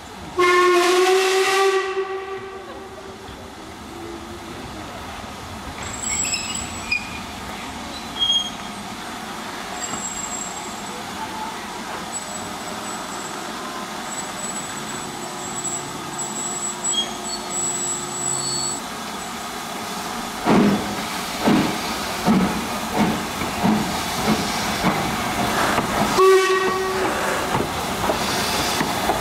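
LMS Black Five steam locomotive 44767 sounds a loud whistle for about two seconds, then steam hisses from its cylinder drain cocks. Near the end come slow, regular exhaust beats as it works, cut by a second short whistle.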